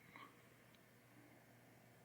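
Near silence: room tone, with one faint light click just after the start.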